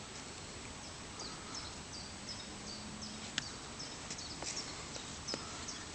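Steady outdoor background noise with short high chirps repeating a few times a second, and a few sharp clicks in the second half.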